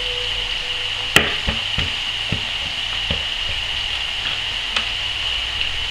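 Chopped vegetables sizzling in a frying pan with a steady hiss as more are tipped in from a plastic tub and stirred with a wooden spoon. A sharp knock about a second in, then several lighter knocks against the pan.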